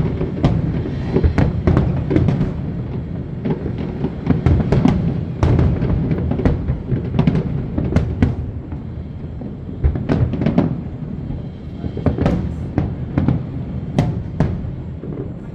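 Aerial fireworks bursting in rapid succession: a dense run of sharp bangs and crackles, several a second, over a continuous low booming rumble.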